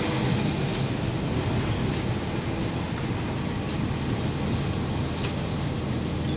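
Cabin of a moving Mercedes-Benz OC500LE single-deck bus: steady engine hum and road noise, with a few faint clicks from the cabin now and then.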